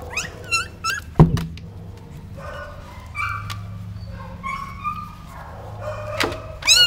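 High-pitched whining and squealing from a mother dog and her young puppies, in short gliding cries near the start and end and longer steadier whines in the middle. A single loud thump about a second in.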